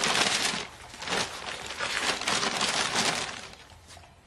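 Paper wrapping crinkling and rustling as it is pulled back off a framed painting, dying away a little after three seconds in.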